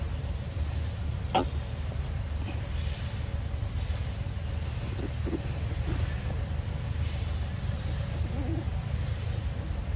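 Steady high-pitched drone of insects over a low rumble of wind on the microphone, with one sharp click about a second and a half in.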